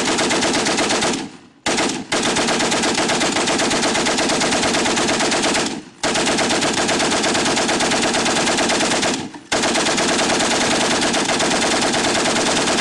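Water-cooled Maxim machine gun firing long bursts of rapid automatic fire, a steady stream of shots broken by brief pauses about a second and a half in, around six seconds in and a little past nine seconds.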